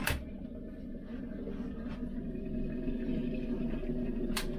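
Steady low hum of the ferry's machinery inside a small cabin. A sharp click at the start as the door's metal lever handle is worked, and another click near the end.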